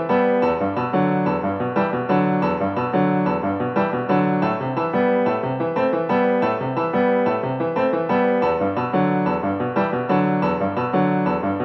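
Background music on piano, a steady repeating pattern of notes.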